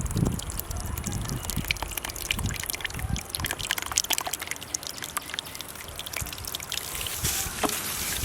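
Curd (yogurt) being added to raw chicken for a marinade: wet trickling and dripping with many small clicks and a few soft low thumps.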